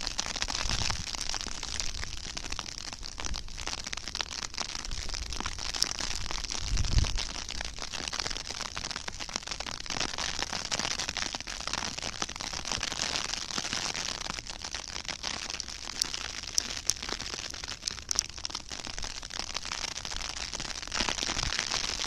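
Sleet (ice pellets) coming down and ticking on snow-covered ground: a steady crackling hiss full of scattered sharp clicks. There is a brief low bump about seven seconds in.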